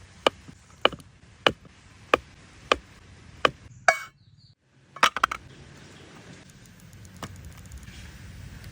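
A series of sharp, evenly spaced chopping or knocking strikes, about one every two-thirds of a second, stopping about four seconds in. After a short gap comes a quick cluster of strikes, then a single one, with a faint hiss rising near the end.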